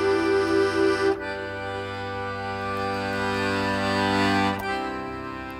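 Schwyzerörgeli, a Swiss diatonic button accordion, playing slow sustained chords. A chord pulses about four times a second, changes about a second in to a held chord that swells, and shifts to a softer chord near the end.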